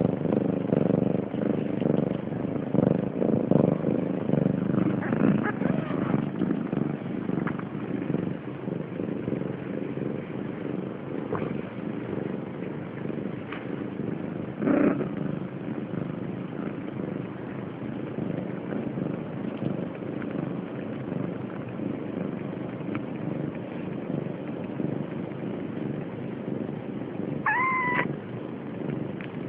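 Siamese mother cat purring steadily and close up while her kittens nurse. Near the end a kitten gives a short, high mew.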